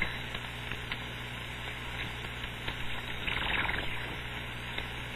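Receiver hiss and band noise from a sideband transceiver tuned to 27.555 MHz in the 11-metre band, with no station transmitting. A faint, garbled distant signal rises out of the noise about three seconds in, over a low steady hum.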